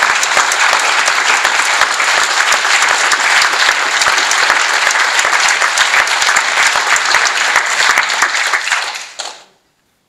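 Loud applause from a large group of people clapping together, which dies away near the end.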